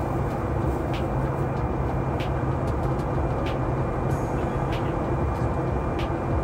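Steady cabin rumble of a Boeing 737 MAX 8 on the ground, with a short knock about every second and a quarter, typical of the wheels rolling over pavement joints while taxiing.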